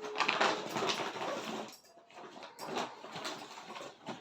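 Rustling and crinkling of a heavy lehenga's fabric and its packaging being unfolded and handled, in two spells with a short lull between.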